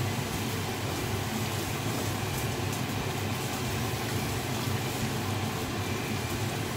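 Steady low machine hum with an even hiss, and a few faint clicks over it.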